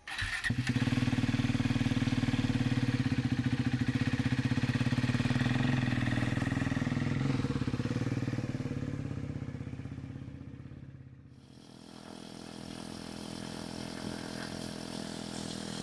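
KTM RC390's liquid-cooled single-cylinder engine running with a fast pulsing beat, then fading away from about six seconds in as the motorcycle rides off. Near the end a quieter steady engine sound carries on.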